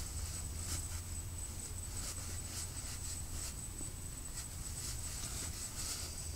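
Faint scratchy rustling of fabric and gear in short irregular strokes as someone moves around inside a tent, over a steady low hum and a thin high whine.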